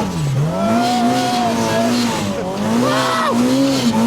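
Turbocharged Polaris RZR Pro R's engine running hard under load as it plows through deep snow; the revs dip sharply just after the start, then climb back and rise and fall.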